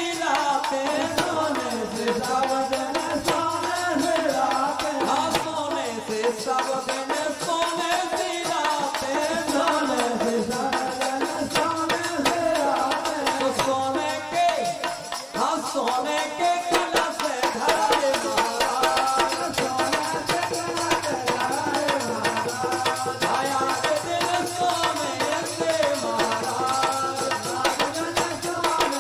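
Bundeli folk bhajan: a man sings through a microphone and loudspeakers, over a hand drum keeping a steady beat and rattling jingles, with a short dip in the music about halfway through.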